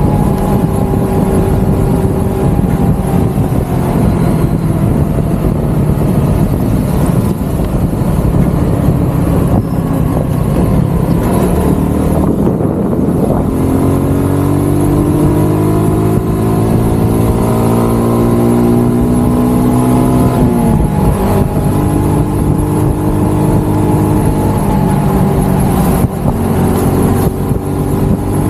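Motorcycle engine running under way with steady wind and road rush. About halfway through, its pitch climbs steadily as the bike accelerates, then drops abruptly about two-thirds of the way in, as at a gear change or easing off the throttle.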